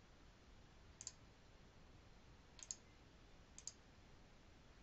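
Three faint computer mouse clicks, each a quick press-and-release double tick, spread across the few seconds over near-silent room tone.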